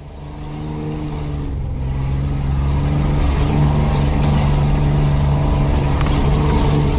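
Off-road 4x4's engine running steadily under load as it drives along a rutted dirt track, a low drone with a few faint knocks. The sound fades in over the first couple of seconds.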